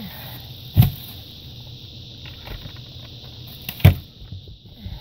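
Two sharp thumps, about three seconds apart, over a faint steady hiss.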